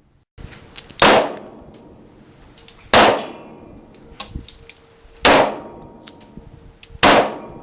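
Four shots from a Single Action Army–style revolver, fired slowly about two seconds apart, each with a long echoing decay and a faint metallic ring lingering after.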